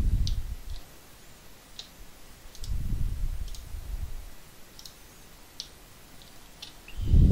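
A computer mouse clicking about ten times at irregular intervals. Low, dull rumbling swells about a second long come about three seconds in and again near the end, and these are the loudest sounds.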